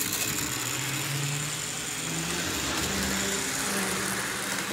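Model Via Rail F-unit locomotive running on its track, the electric motor humming with a faint hiss; the hum rises in pitch over the first couple of seconds as the throttle is turned up toward full power.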